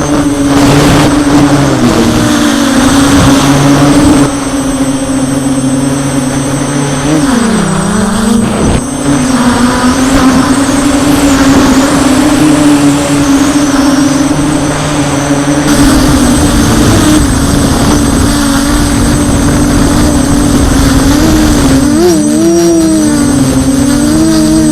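DJI F550 hexacopter's six electric motors and propellers buzzing steadily in flight. The pitch dips and recovers with throttle changes about seven seconds in, and wobbles up and down near the end. A low rushing noise joins in during the second half.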